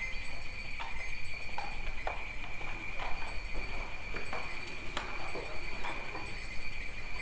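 Horse hooves clip-clopping at an unhurried walk as it pulls a sleigh, the hoof strikes coming irregularly about one or two a second over a steady high ringing tone.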